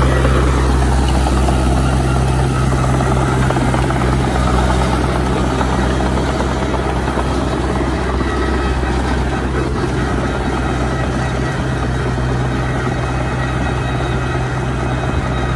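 Steady, loud machine noise with a strong low hum that holds without a break.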